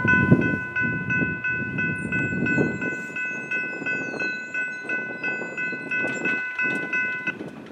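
Railroad grade crossing bell ringing steadily at about three strikes a second while the crossing gates come down, the signal that a train is approaching. It stops suddenly near the end, once the gate arm is level.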